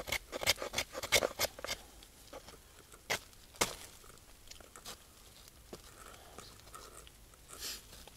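Knife spine scraping a piece of hard wood: a quick run of short scrapes over the first two seconds, then a few scattered strokes.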